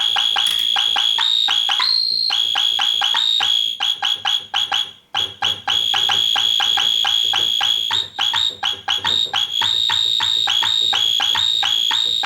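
Yamaha CS-20M analog monophonic synthesizer sounding a high-pitched tone chopped into fast, even pulses, about six a second. The pitch steps up briefly about two seconds in, and the pulsing breaks up with short gaps twice midway.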